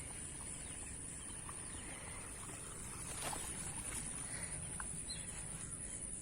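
Steady high-pitched insect chirring over a low outdoor background, with a few faint soft clicks.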